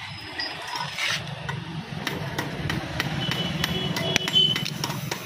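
Scattered sharp clicks and knocks from a damaged scooter's plastic front panels being handled, over a steady low engine hum. Brief high-pitched tones sound about three seconds in.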